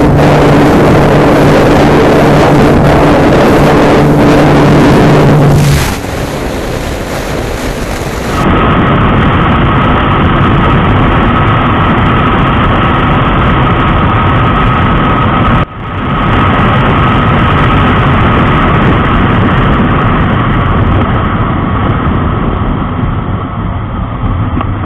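Single-cylinder motorcycles at full speed, with heavy wind rush over the engine on the onboard camera. First a Bajaj Pulsar 220 running steadily near 136 km/h, its sound dropping about six seconds in. Then a TVS Apache RTR 160 4V with a steady high tone over the wind, and a brief dip about sixteen seconds in.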